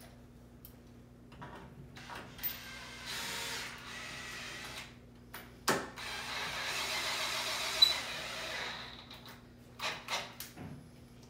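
Cordless drill driving screws into a chair leg: two short runs, then a longer run of about three seconds with a steady whine. Sharp knocks and clicks come between and at the end of the runs as the drill and screws are set against the work.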